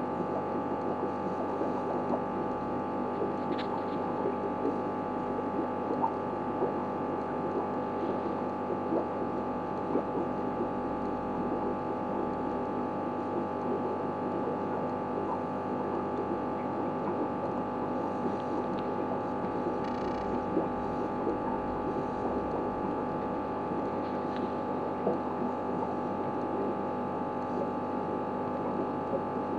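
Steady electrical hum made of several fixed tones, over a fine, even crackle, with a few faint ticks.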